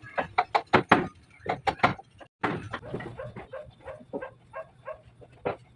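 A rapid, irregular run of sharp knocks and taps, breaking off about two seconds in, followed by lighter, fainter clicks.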